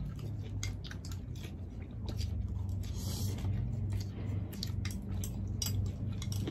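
Close-up eating sounds of pansit canton noodles: wet chewing and smacking mouth clicks, with a short slurp about three seconds in, over a low steady hum.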